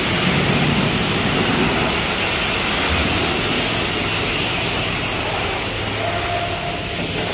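Steady, loud rushing noise of a truck wash bay: water spraying and wash equipment running.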